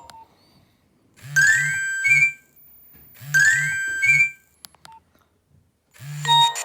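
Nokia 1600 mobile phone ringtone: a short electronic phrase with a rising run of notes, played twice with a gap between. A few brief clicks follow, and a different ringtone starts near the end.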